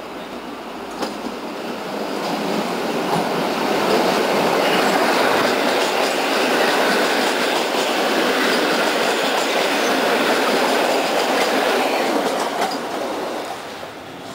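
An oncoming electric multiple unit passing close by on the next track, heard from a moving train: a rushing rumble with some clickety-clack of wheels over rail joints. It builds over a couple of seconds, stays loud for about eight seconds and fades near the end as the last car goes by.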